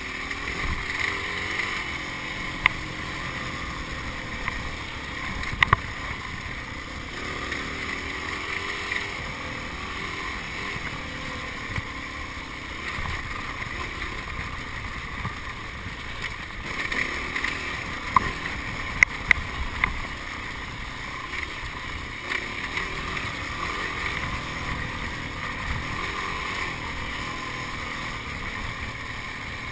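Yamaha enduro motorcycle's engine running under load as it is ridden over a rough dirt trail, heard from a camera mounted on the bike, with a few sharp knocks, about six seconds in and a cluster near the eighteen-to-nineteen second mark.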